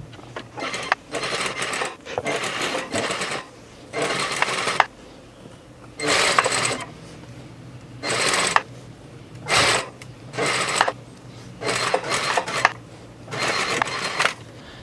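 Domestic sewing machine stitching in about ten short runs, stopping and starting between them as the seam is guided around a curve.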